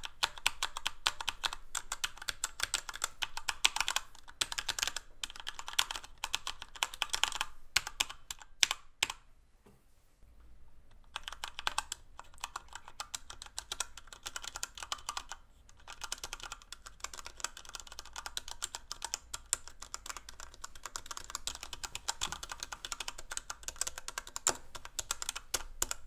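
Typing on a Falcon 20 mechanical macro keypad with Cherry MX RGB Speed linear switches: rapid, continuous keystrokes. The first run is without O-rings; after a short pause about ten seconds in, the typing resumes with O-rings fitted under the keycaps.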